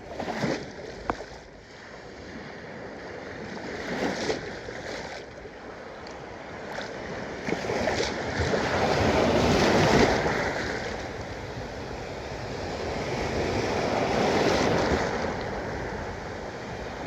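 Surf washing onto a beach, swelling and falling back twice as waves come in, with a few light knocks about a second and four seconds in.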